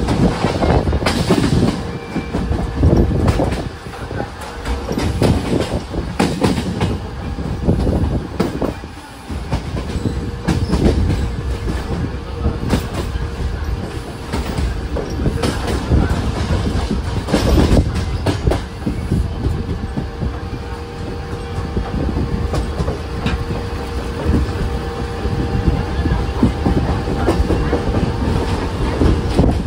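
Mumbai suburban electric local train running, its wheels clattering and knocking over rail joints in an uneven run of clicks over a heavy rumble, with a faint steady hum beneath.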